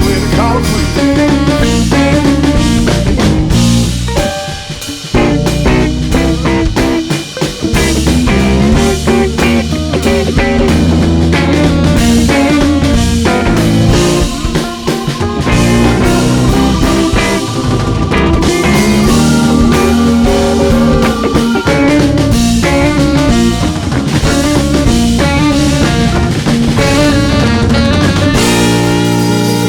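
Live rock band playing an instrumental passage: electric guitar over a drum kit, with brief breaks in the groove a few seconds in.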